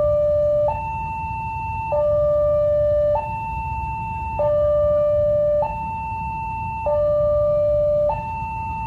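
Railway level-crossing warning alarm sounding a two-tone electronic hi-lo signal, switching between a higher and a lower tone about every 1.2 seconds. The barrier is down and a train is approaching.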